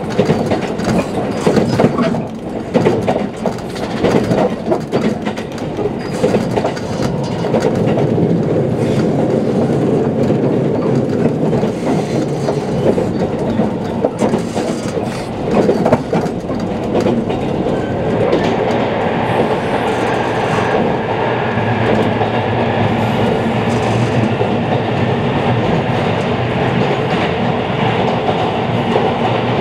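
JR Kyushu 787 series electric train heard from inside the passenger cabin while running at speed: wheels drumming on the rails with irregular rail-joint clicks. A little past halfway the sound turns into a steadier, hissier roar as the train enters a tunnel.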